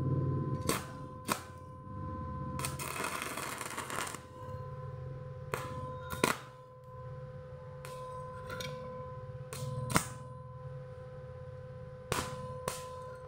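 Inverter stick welder arc crackling as it dies out at first and again briefly about three seconds in, with a scatter of sharp clicks and taps, over a steady high electrical whine from the welding machine.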